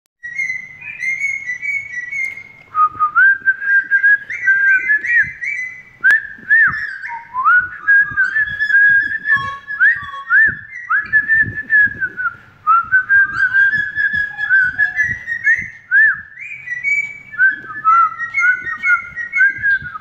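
Cockatiel whistling a long, warbling song of short rising and falling notes, almost without a break, with a few faint clicks.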